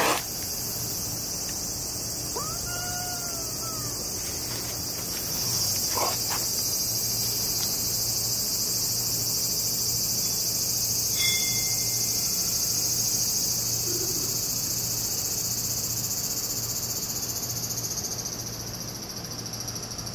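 A steady, high-pitched chorus of insects. About two and a half seconds in there is a single short rising-and-falling meow from a cat, and a few faint clicks and handling noises.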